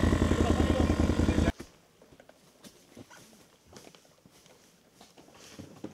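A small engine, such as an ATV's, runs loudly with a steady pulsing beat for about a second and a half, then cuts off abruptly. After that only faint scattered clicks and rustles remain, as a plastic gas can is handled over dry leaves.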